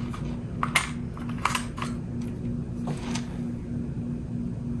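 Scattered faint clicks and light taps of small objects being handled, over a steady low hum with a faint tone that pulses a few times a second.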